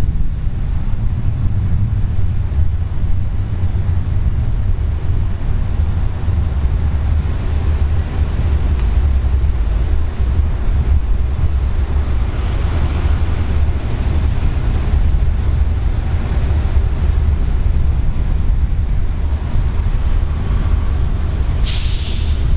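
Hitachi diesel-electric locomotive 4515 idling at a standstill with a steady deep rumble. Near the end comes a short sharp hiss of released air.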